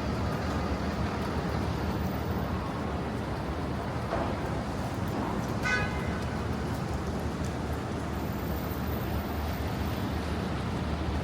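Steady Manhattan street traffic noise, with a short horn toot about halfway through.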